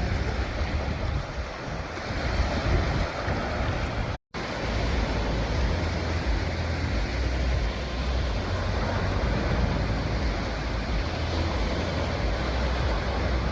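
Mediterranean Sea waves washing in steadily, with wind buffeting the microphone as a low uneven rumble. The sound cuts out completely for a split second about four seconds in.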